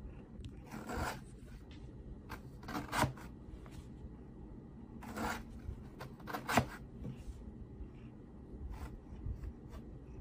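A cat's claws scratching and scraping at the edge of a cardboard box in several short rasps, the loudest about six and a half seconds in, with small ticks and clicks between.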